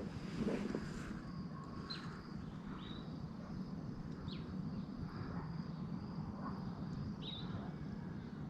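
Evening outdoor ambience: a faint steady insect trill, with short high chirps falling in pitch every second or two, over a low hiss.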